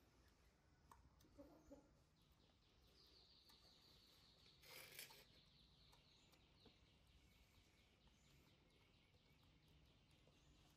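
Near silence, with a faint rapid chirring in the background from about two seconds in and a brief soft rustle about five seconds in.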